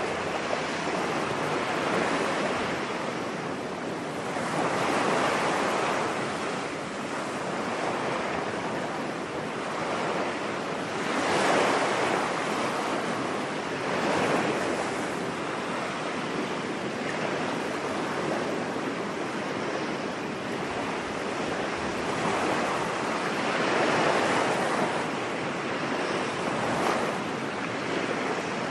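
Ocean surf washing onto a beach, a steady rush of water with waves swelling and falling back every few seconds.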